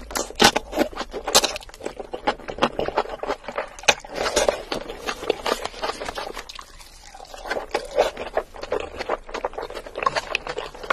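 Close-miked eating sounds: black bean noodles slurped up, then wet, sticky chewing full of small clicks and smacks, with a brief quieter stretch just past the middle.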